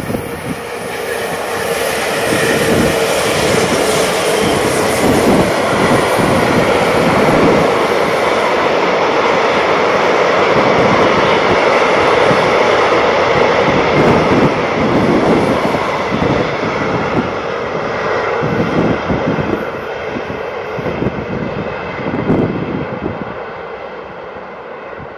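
Freight train of tank wagons hauled by electric locomotives rolling past on a curved line, a steady rumbling of wheels on rails. It swells in the first couple of seconds, holds loud for a long stretch, then fades as the wagons run away from the listener.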